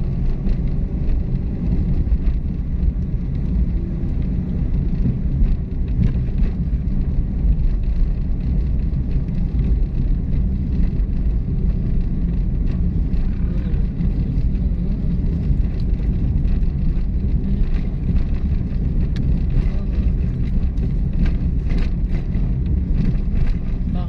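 Vehicle on the move: a steady low rumble of engine and road noise while driving.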